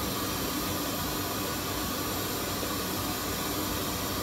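Pink noise test signal played through a Germany Zero120 loudspeaker: a steady, even hiss across the whole range, used to measure the speaker's frequency response with an RTA microphone.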